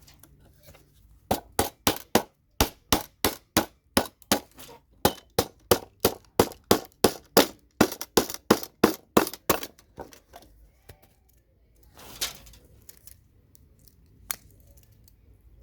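Rapid run of hammer blows, about three a second for some eight seconds, knocking CPU sockets off a motherboard, then a couple of single blows near the end. Each strike is a sharp metallic clang.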